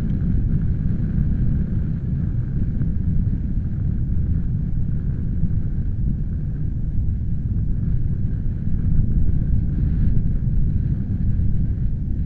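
Strong wind buffeting the microphone in gusts: a loud, low rumble that swells and eases, strongest about three quarters of the way through.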